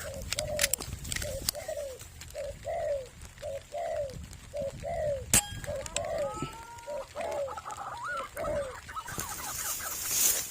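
A bird calling over and over in short, falling notes, about two a second, with a few sharp clicks and a couple of rising whistles partway through. A burst of hiss comes near the end.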